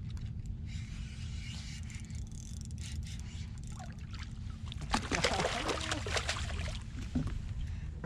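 Water lapping against a small fishing skiff's hull, with a low steady rumble underneath. About five seconds in, a louder noisy burst lasts about two seconds.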